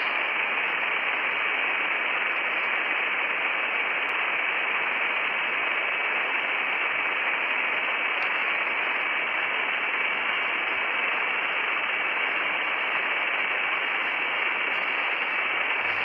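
Steady static-like hiss, even and unchanging, with a faint high steady whine running through it.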